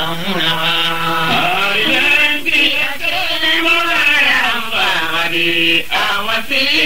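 A single voice chanting in long held notes that waver and bend in pitch.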